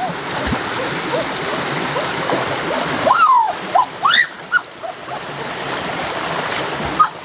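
Shallow rocky stream running steadily, with splashing as a person wades and lunges through the water. Between about three and four and a half seconds in come several short, high, rising-and-falling calls, the loudest sounds here.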